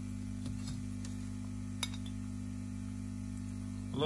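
Hands handling a new metal coax chassis socket: faint rustles, then one sharp metallic click a little under two seconds in, over a steady low electrical hum.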